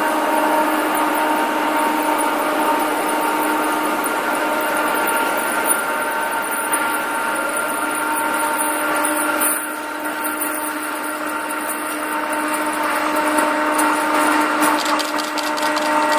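KORAIL 7400-class diesel-electric locomotive hauling a freight train toward the listener: a steady mechanical whine and drone that grows louder as it nears. Quick wheel clicks on the rails set in near the end as it draws close.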